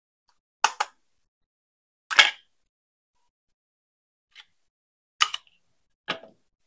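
Short sharp clicks and taps from handling a plastic RC toy car and its packaging: about half a dozen, some in quick pairs, the loudest about two seconds in, with dead silence between.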